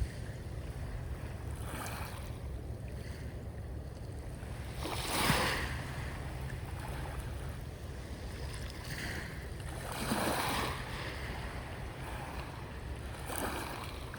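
Sea waves washing in about four times, each wash of surf swelling and fading, over a steady low rumble of wind on the microphone.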